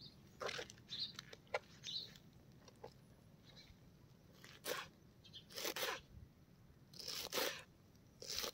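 Knife cutting through fresh spinach leaves onto a plastic cutting board: short crisp crunchy strokes at an uneven pace, a quick run of them in the first two seconds, then a handful of spaced cuts.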